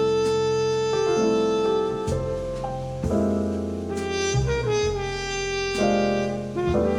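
Jazz with saxophone and piano played through Fostex P1000K 4-inch full-range drivers in small bass-reflex cabinets, recorded by microphone in the room. Sustained melody notes change every second or so over a steady bass.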